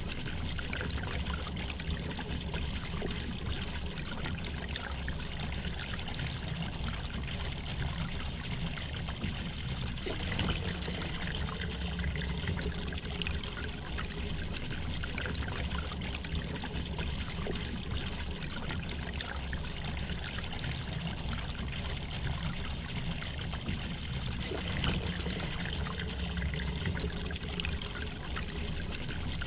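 River water flowing gently over stones, a steady trickling and gurgling rush.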